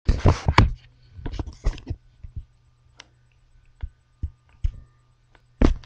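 Handling noise: a string of sharp clicks and knocks, a quick cluster in the first second, a few more soon after, scattered single clicks, then one louder knock near the end, over a faint steady hum.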